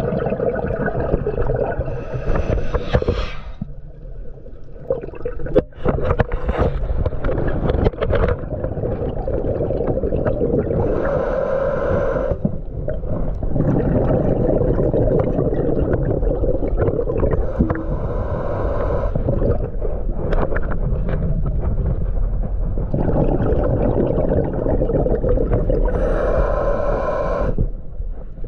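Underwater sound of a scuba diver breathing through a regulator: a steady low rumble, with a hissing burst of exhaled bubbles every several seconds and a few sharp clicks.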